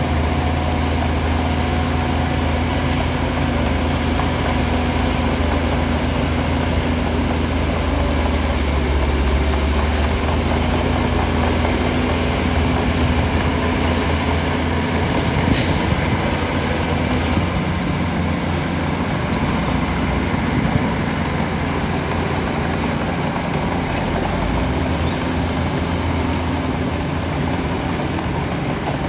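Shantui DH17 bulldozer's diesel engine running steadily under working load, its note shifting about a third of the way in and again a little past halfway.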